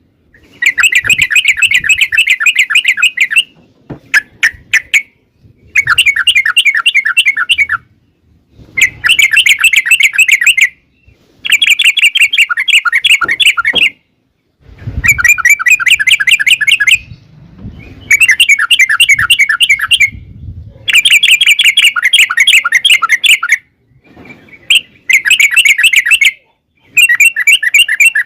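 Yellow-vented bulbul (trucukan) singing in loud bouts of rapid, bubbling chatter, each lasting two to three seconds with short pauses between, in the long rolling 'ropel panjang' style used to call other bulbuls into answering.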